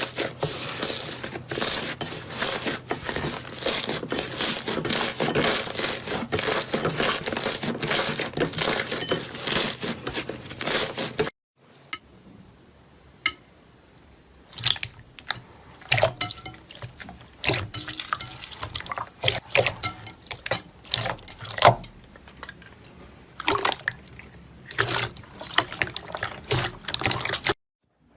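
Slime being squeezed and played with by hand: about eleven seconds of dense crackling clicks, then a sudden break, then sparser separate pops and clicks.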